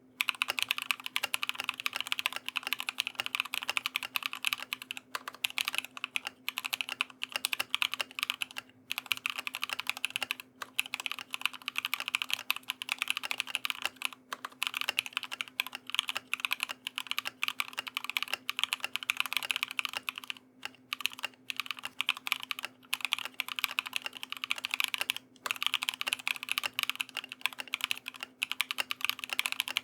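Continuous typing on a CMM Studio Fuji65 mechanical keyboard with SOTC linear switches on an aluminium plate, IFK Musubi keycaps and a layer of paper-towel dampening. It is a dense stream of keystrokes, broken by a few short pauses.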